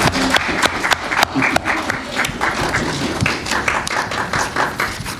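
Audience applauding: many people clapping in a dense, uneven patter that stops near the end.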